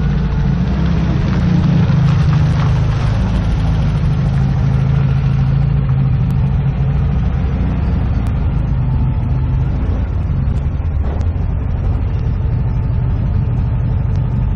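Motor vehicle engine running steadily with a low, even hum, slightly louder about two seconds in.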